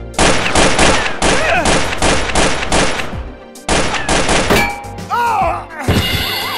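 Rapid automatic-gunfire sound effect in two bursts, the first about three seconds long and the second about one second, followed by a few short squeaky gliding cries.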